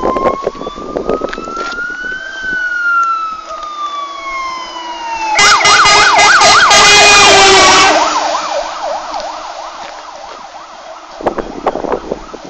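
MAN fire engine's siren on an emergency run: a slow wail rising then falling, switching about five seconds in to a loud, fast yelp as the truck passes close, then fading as it moves away.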